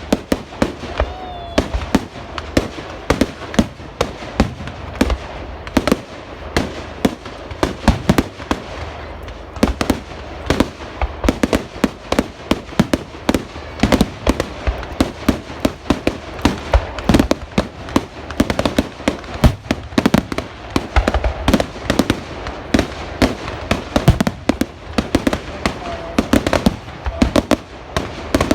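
Fireworks display: a dense, unbroken barrage of sharp bangs, several a second.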